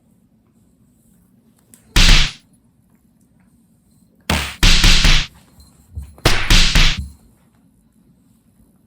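Two house cats scuffling in a play-fight: three loud, sudden bursts of thudding and swatting, each under a second long and spaced about two seconds apart, the later two longer than the first.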